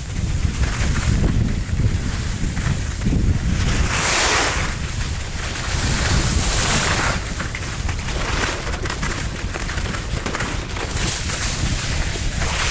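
Wind buffeting the microphone of a skier's camera during a descent, under the hiss of skis sliding and scraping over packed snow, which swells three times: about four seconds in, a couple of seconds later, and near the end.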